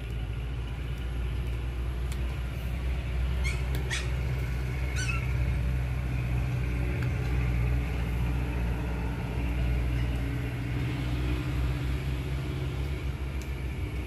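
A steady low engine rumble runs throughout, with a few short high chirps about three and a half to five seconds in.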